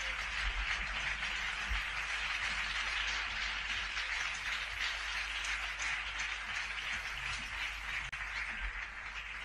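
Audience applause: a steady, even patter of clapping from a concert crowd.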